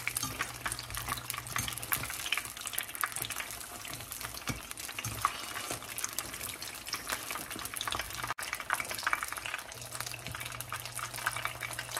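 Wontons shallow-frying in hot vegetable oil: a steady sizzle with dense, fine crackling as the wrappers turn brown. A low steady hum lies underneath.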